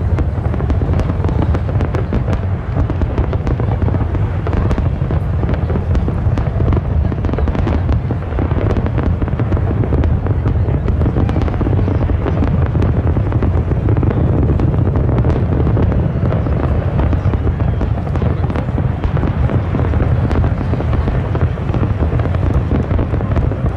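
Aerial fireworks display: a dense, continuous rumble of shell bursts with many sharp cracks and crackles over it.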